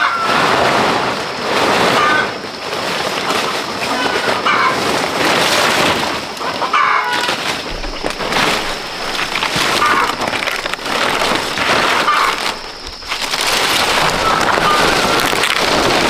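Dry and fresh fan-palm leaves rustling and crackling as they are handled and laid as roof thatch, swelling and fading every second or two. A few short bird calls, like chickens clucking, come through now and then.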